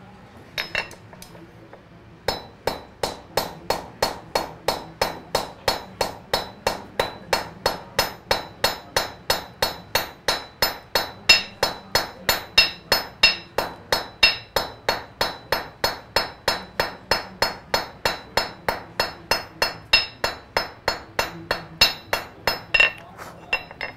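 Blacksmith's hand hammer striking the red-hot end of an iron rod on an anvil, each blow with a bright metallic ring. Two single blows come about a second in, then a steady run of blows at two to three a second that stops near the end. The hammering draws the end of the rod out to a taper for the start of a scroll.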